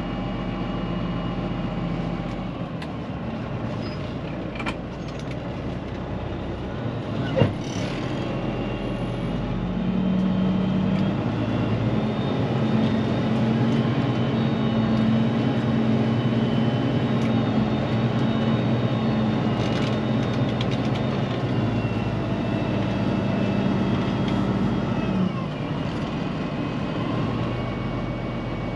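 Peterbilt 379 truck's diesel engine running, heard from inside the cab. About a third of the way in its note rises and gets louder, holds there, then drops back near the end; a single sharp knock sounds about a quarter of the way in.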